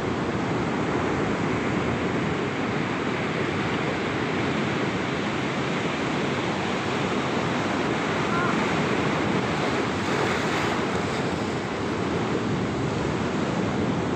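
Ocean surf breaking and washing over a rocky shore in a steady, continuous rush.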